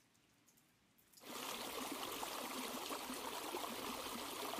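Near silence, then about a second in a steady rushing hiss of heavy rain starts abruptly, added as a sound effect.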